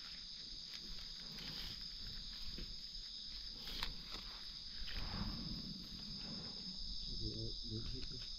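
Steady high-pitched drone of a forest insect chorus, with scattered rustles and clicks of leaf litter and twigs being handled.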